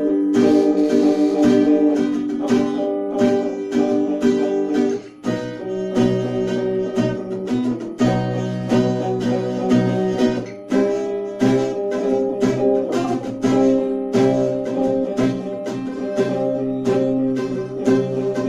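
An acoustic guitar and an electric guitar playing an instrumental passage together, picking quick notes and chords. The playing drops briefly about five seconds in, then a new phrase begins.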